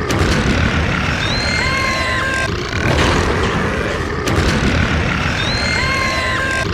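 Loud, heavily distorted burp sound effect repeated in a loop of about four seconds, a rough low rumble with a short high tone that bends at its end in each repeat.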